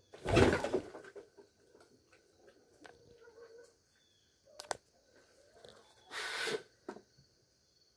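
A large dog snapping at a hen that is pecking at its face: a short, harsh burst about half a second in, with scuffling after. A sharp click near five seconds in and a second short, harsh burst a little after six seconds.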